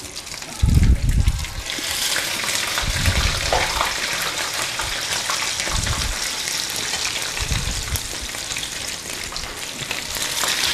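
Egg-dipped bread slices (rabanadas) frying in hot oil in a pan: a steady sizzle that grows louder about two seconds in. A few dull low thumps are heard, the loudest one near the start.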